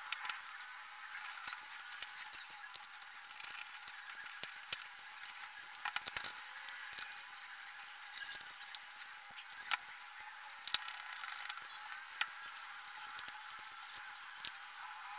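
Scattered small clicks and taps of plastic speaker parts and a screwdriver being handled during reassembly, with a quick cluster of clicks about six seconds in, over a faint steady hiss.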